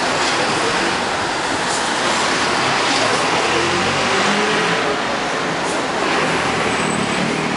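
Street traffic: cars passing, with an engine pulling away louder about halfway through.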